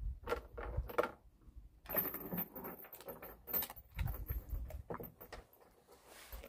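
A chained dog moving about and sniffing on a wooden deck: its metal chain clinks and scrapes on the boards in irregular short clicks and rattles.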